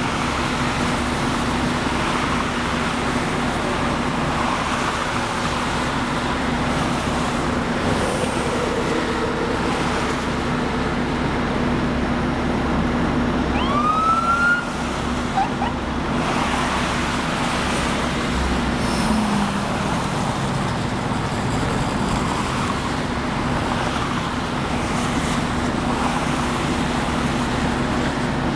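Steady roar of highway traffic, police cars and other cars passing below at speed. About halfway through comes one brief rising siren whoop.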